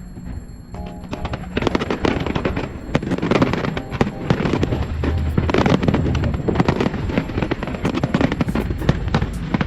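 Aerial fireworks bursting with dense, rapid crackling and bangs. The crackling thickens about a second and a half in and stays dense after that.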